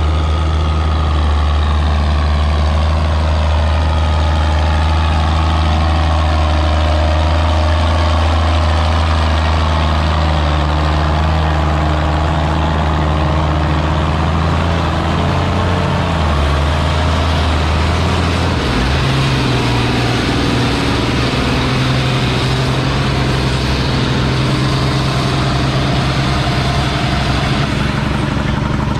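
Antique tractor engine running hard under load, pulling a weighted sled, with a steady low hum. The engine note changes about two-thirds of the way through.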